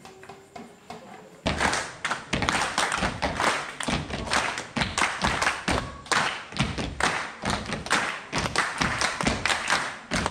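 Group body percussion: hand claps mixed with thumps, struck in a fast, tight rhythm of several strikes a second. It starts suddenly about a second and a half in, after a quiet moment.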